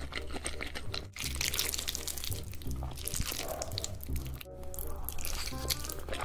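Close-miked wet mouth sounds of eating cheesy spicy noodles, smacking and slurping with many small clicks, over background music. The sound drops out briefly twice, about a second in and again about four and a half seconds in.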